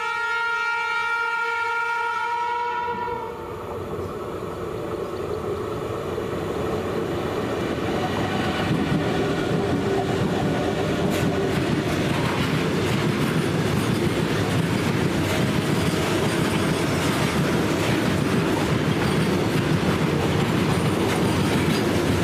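Horn of a WAG-12B electric freight locomotive sounding one steady chord for about three seconds. Then the freight train's wagons pass close by, a rumble that grows louder, with the wheels clattering rhythmically over the rails.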